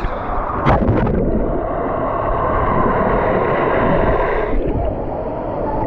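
Water rushing and splashing around a tube on a water-park rapids ride, a loud steady noise with a sharper splash just under a second in.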